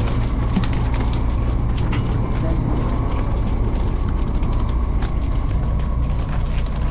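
A fishing boat's engine running with a steady low drone, with many small clicks and ticks over it.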